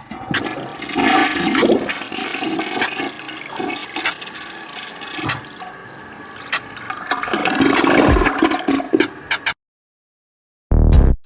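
Toilet flushing: a rushing of water for about nine and a half seconds that dips and then swells again before cutting off abruptly. After a second of silence, loud music comes back in at the very end.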